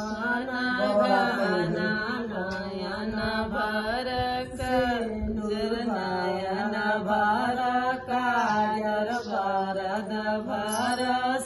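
Women singing a North Indian wedding folk song (vivah geet), holding long drawn-out notes that rise and fall in pitch.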